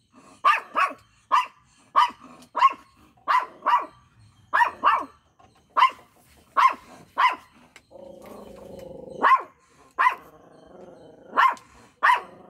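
Miniature pinscher giving repeated sharp, high barks, many in quick pairs, guard-dog alarm barking at something outside. About eight seconds in the barks pause for a low growl, and a softer growl runs under the barks a little later.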